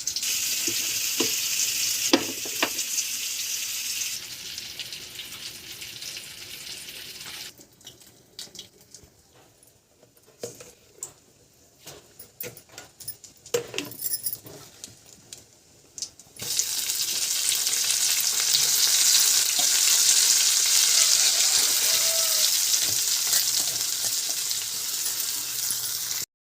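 Food frying in oil in a pan, sizzling. In the middle the sizzle dies down to a few scattered clicks and scrapes, like a spatula stirring. From about two-thirds of the way through it sizzles loudly and steadily, then cuts off suddenly.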